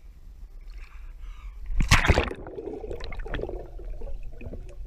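A loud splash in a swimming pool about two seconds in, then muffled underwater gurgling and bubbling heard from a camera under the surface.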